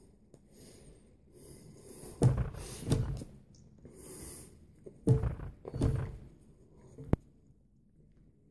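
Hands knocking and brushing against a table and clothing: two clusters of short thuds and rustles, with a sharp tap a little after seven seconds.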